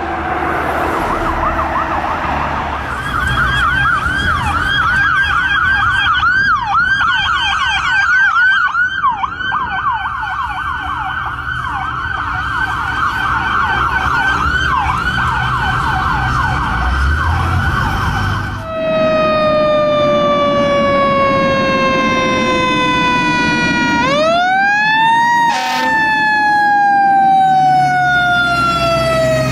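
Emergency vehicle sirens with a truck engine rumbling underneath: first an electronic siren on a fast yelp, many rising sweeps a second. Then a mechanical siren, typical of a Federal Q, winds down in a long falling tone, is spun up again near the end and coasts down slowly, with a brief sharp noise just after it peaks.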